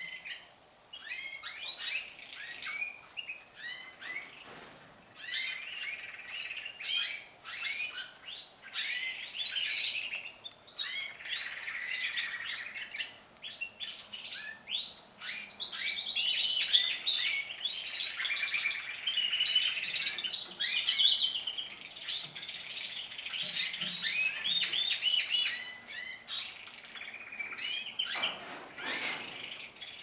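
Several male domestic canaries singing at once, long runs of rapid trills and chirps overlapping one another. The singing is busiest and loudest in the middle stretch.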